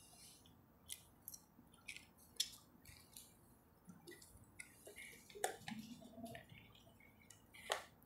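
Faint scattered clicks and rustling as cables and a power adapter's DC plug are handled around a hard-drive enclosure.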